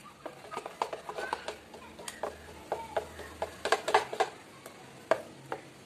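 Steel spoon stirring appam batter in a bowl: quick, irregular clinks and scrapes of the spoon against the bowl, with a cluster of louder clinks about four seconds in.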